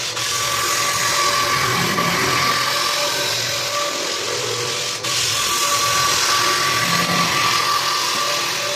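Power floor sander running steadily on hardwood, a dense grinding noise with a constant high whine. The sound breaks off abruptly and resumes about five seconds in.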